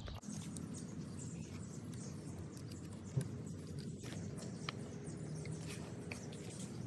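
Scattered light clicks and taps of hand tools on metal, with one sharper knock about three seconds in, over a steady low rumble.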